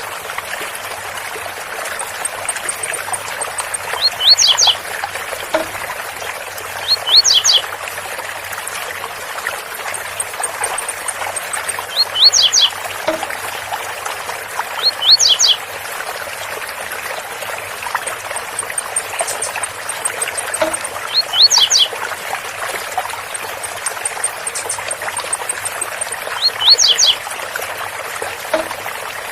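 Blue-black grassquit (tiziu) singing its short 'zel zel' song phrase, repeated six times a few seconds apart, over the steady rush of a waterfall.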